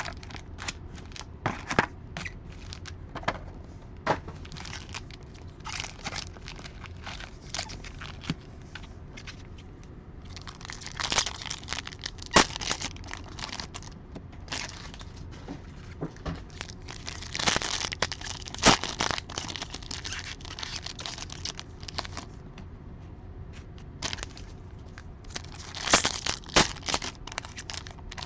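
Foil wrappers of 2020 Panini Chronicles football card packs being torn open and the cards shuffled through by hand: a run of crackling and crinkling clicks, with three longer, louder spells of wrapper tearing and crinkling spread through.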